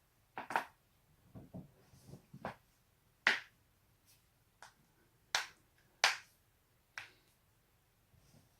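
A person's joints being cracked: a run of about ten sharp pops at irregular intervals, some in quick pairs, the loudest about three seconds in and around five to six seconds in.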